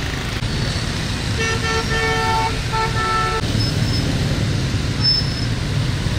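A vehicle horn honking several times over about two seconds, the middle blast the longest, over the steady rumble of road traffic.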